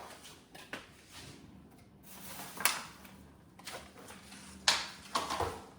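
Refrigerator shelf being slid back into its runners, giving several separate knocks and clatters, with a faint steady hum in the second half.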